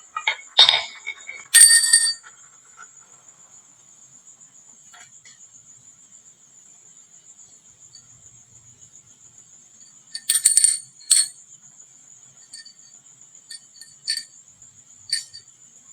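Marbles clattering down a wooden marble run, with bright bell-like ringing among the clicks. The clattering comes in bursts near the start and again after about ten seconds, then a few lighter ticks. A faint steady high whine sits underneath.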